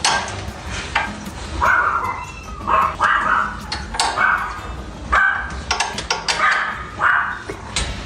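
A pet animal giving about a dozen short, repeated cries, roughly one every half second to a second, over a noisy background with scattered clicks and a low hum.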